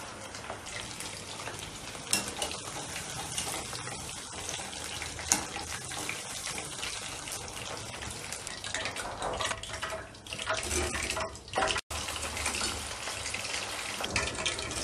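Chicken pakoras deep-frying in hot oil in a steel pan: steady sizzling and crackling of the bubbling oil, broken off briefly about twelve seconds in.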